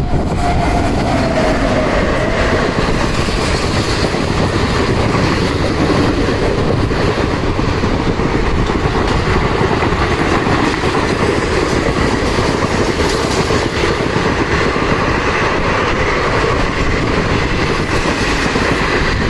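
An Indian Railways passenger train hauled by an electric locomotive passing through a station at speed: the steady running noise of its wheels and coaches on the rails, with a falling whine in the first couple of seconds as the locomotive goes by.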